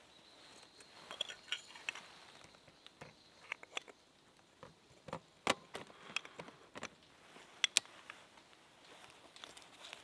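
Scattered light clicks and taps over a quiet forest background, a few sharp ones standing out about five and a half and seven and a half seconds in. There is a faint steady high tone during the first two seconds.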